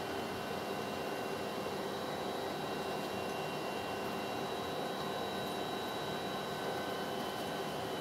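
Steady hiss and hum of the space shuttle Columbia's cabin ventilation fans and equipment, with several faint steady whining tones over it and no change.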